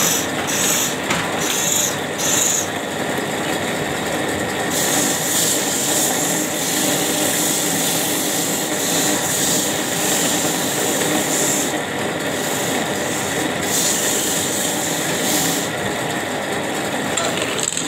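Wood lathe spinning a wooden bed-leg blank while a hand-held turning chisel cuts and scrapes it: a continuous high scraping, in short bursts over the first couple of seconds, then steady from about five seconds in until about fifteen.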